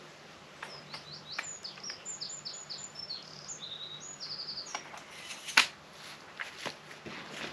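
A songbird sings a quick run of short, high, falling notes for about four seconds. Sharp clicks of a tent pole being handled and fitted sound now and then, the loudest a crisp knock about five and a half seconds in.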